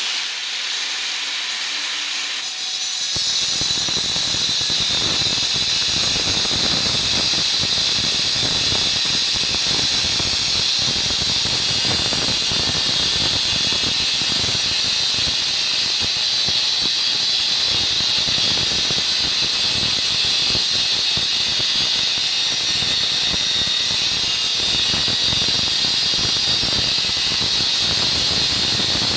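Angle grinder cutting into 1 1/4 inch steel gas pipe, making the second cut of a saddle. A high whine fills out about three seconds in and then runs steadily.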